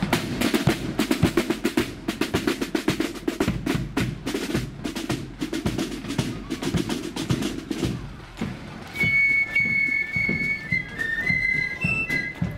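Marching band's side drums playing a fast, rolling snare beat. About nine seconds in, after a brief lull, flutes start a high melody over lighter drumming.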